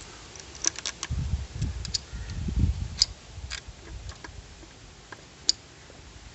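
Small metal clicks and taps of bolts and a motorcycle oil pump being handled and fitted against the engine crankcase. A low rumble runs between about one and three seconds in, and a single sharp click near the end is the loudest sound.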